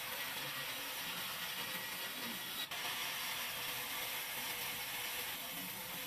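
Large band saw running as its blade rips lengthwise through a wooden plank being fed along the fence, a steady hissing saw noise with a faint hum beneath it and a brief dropout about halfway.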